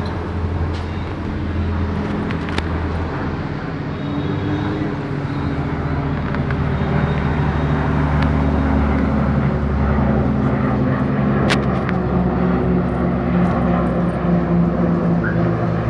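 Formation of military propeller transport aircraft flying overhead: a steady low drone of several engines and propellers, their tones beating and shifting as the planes pass, growing slightly louder.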